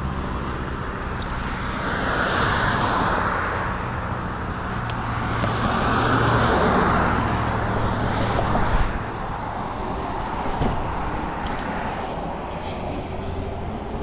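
Road traffic on a busy street: passing cars' tyre and engine noise swells and fades twice over a steady low hum, with a short knock a little past halfway.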